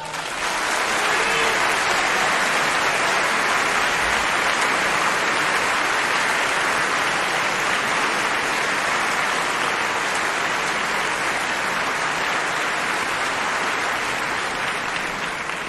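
Audience applauding in a live opera recording, holding steady and then fading out near the end.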